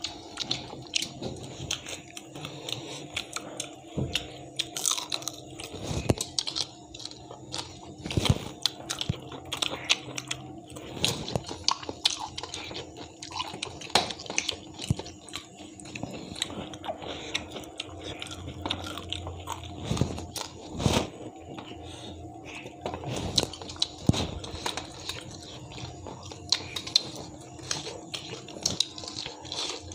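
Two people chewing and crunching fried fish, with frequent irregular sharp clicks and crunches as fingers pick the fish off the bones on a steel platter, over a steady low hum.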